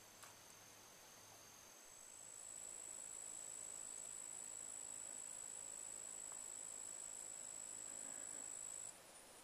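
An insect trilling: one steady, high-pitched trill at a single pitch that starts about two seconds in and stops abruptly near the end, over faint background hiss.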